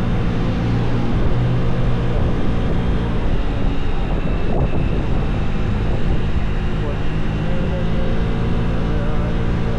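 Vespa Primavera 125 scooter's single-cylinder four-stroke engine running steadily under way, its sound holding an even level.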